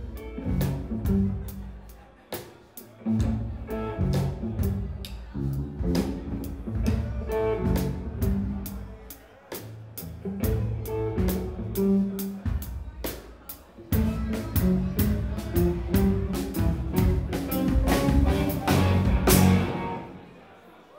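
Live rock band playing: electric guitar over a drum kit keeping a steady beat. The music dies away near the end.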